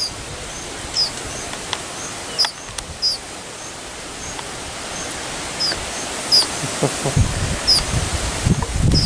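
A small bird calling over and over with short, high chirps, each with a quick falling hook, about once a second, over steady outdoor background hiss. A few dull low thumps come in the second half.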